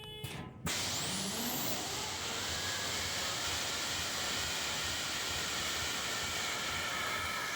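Air starter on an EMD SD70ACe locomotive engine kicking in about half a second in, with a sudden rush of compressed air and a whine that rises quickly in pitch, then a steady rushing hiss as it turns the engine over. The engine does not catch; the uploader puts the failed auto-start down to the electric fuel pump not running.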